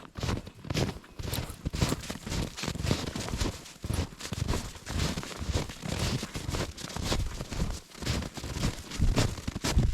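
Footsteps crunching through deep snow in a steady walking rhythm, about two steps a second.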